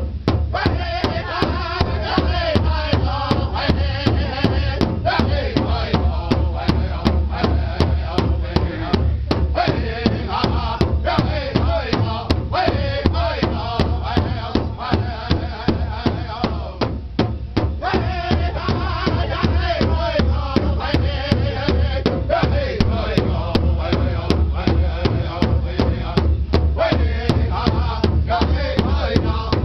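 Powwow drum group of men singing together over a large shared powwow drum struck with drumsticks in a steady, even beat.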